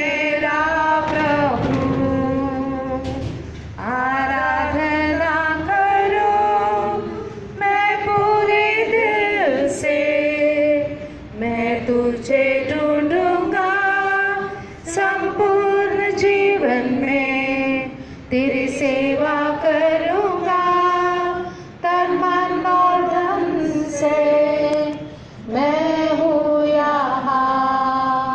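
A group of people singing a Hindi hymn together, women's voices leading, in sung phrases of a few seconds each with short breaths between.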